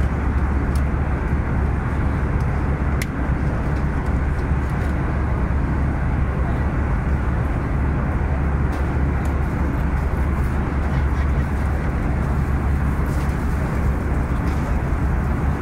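Airbus A320 passenger-cabin noise in cruise: a steady low roar of engines and airflow.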